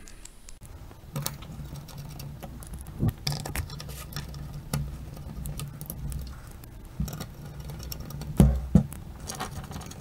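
Spring-loaded heatsink screws being threaded back into a graphics card by hand: a stream of small clicks and scratches, with a few louder knocks of the card being handled, one about three seconds in and two close together near the end.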